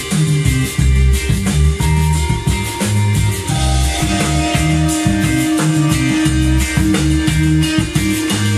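Instrumental rock music with guitar, bass and drums, played back through a vintage stereo receiver, with a steady, pulsing bass line.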